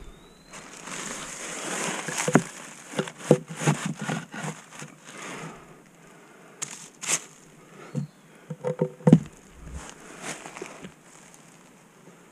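Footsteps crunching and scuffing on a dirt and rock trail, with irregular knocks and crunches.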